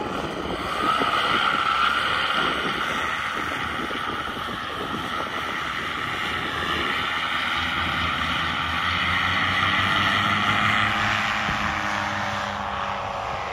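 Paramotor trike's engine and propeller running at high throttle on its take-off roll across grass, getting louder about a second in. It holds a steady drone, then falls in pitch near the end.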